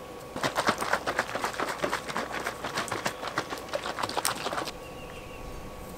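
A plastic container of Wetlander two-part boat bottom coating shaken hard by hand: rapid rattling clatter for about four seconds that stops abruptly.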